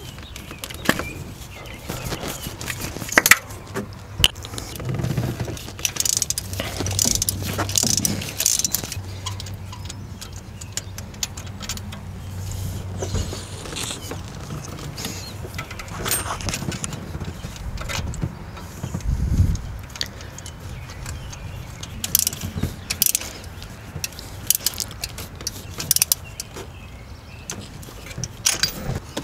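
Socket wrench and metal hand tools clicking and rattling against engine parts while spark plugs are worked on, with irregular clicks throughout and a dull thump about two-thirds of the way in.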